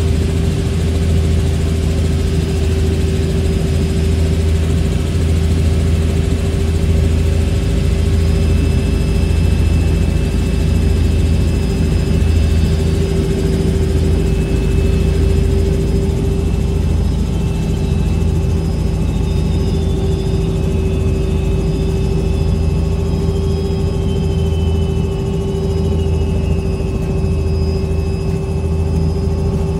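Tour helicopter in flight, heard from inside the cabin: a loud, steady drone of rotor and engine with a constant hum.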